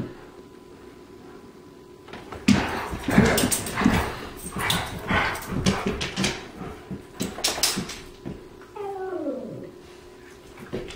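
New Guinea singing dog howling in short spurts: after about two seconds of quiet, a quick run of short cries, then near the nine-second mark one call that slides down in pitch.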